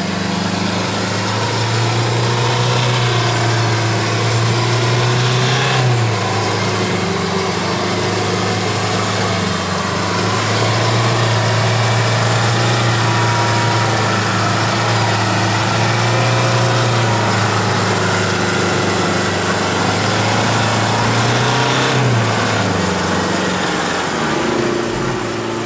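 Toyota Land Cruiser 150's engine running under load as the stuck SUV crawls through deep mud on a tow strap. It holds fairly steady revs that dip and pick up again a few times, with tyre and mud noise underneath.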